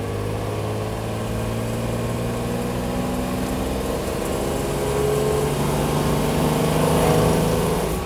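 1963 Maserati 3500 GT Vignale Spyder's straight-six engine pulling the car along the road. Its pitch climbs steadily as it accelerates through the second half, heard from the open cockpit.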